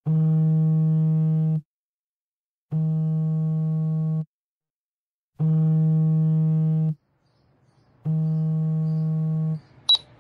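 Four long, steady, buzzy electronic tones on one low pitch, each lasting about a second and a half with roughly a second's gap between them, followed by a single sharp click near the end.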